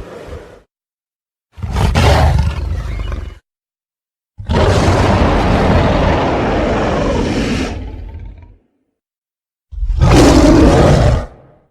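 Big gorilla roar sound effects: three separate deep, loud roars with dead silence between them, the middle one the longest at about four seconds, after the tail of an earlier roar at the very start.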